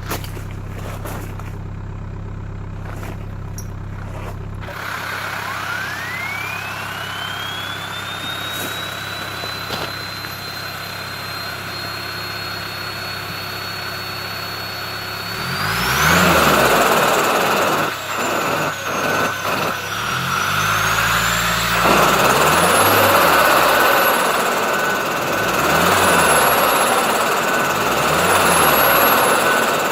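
Turbocharged engine with a high turbo whine. The whine rises and then holds steady. From about halfway the engine is revved up and down again and again, louder, the whine climbing and falling with each rev.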